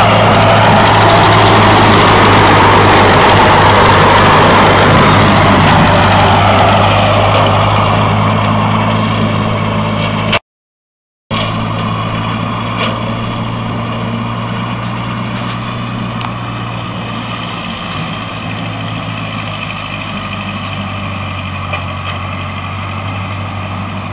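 Small farm tractor's engine running steadily while it pulls a rotary brush-hog cutter. It is loud at first, then fainter after a short cut about ten seconds in.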